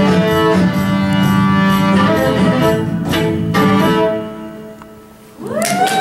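Violin playing a tune over a rhythmic accompaniment with sharp beats, the music dying away after about four seconds as the piece ends. Audience applause and cheers break out near the end.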